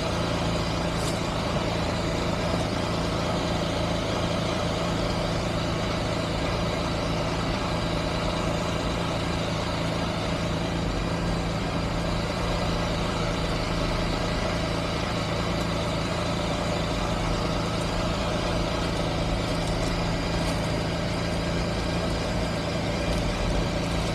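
Can-Am Spyder's Rotax 1330 three-cylinder engine idling steadily.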